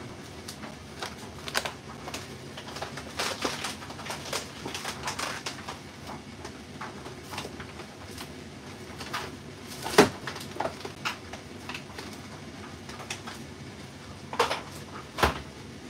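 Kitchen clatter of things being shifted about: scattered knocks, clicks and rustles, with one sharp knock about ten seconds in and two more near the end.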